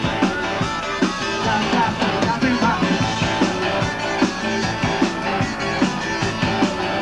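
A live rock band playing, with a steady drum beat.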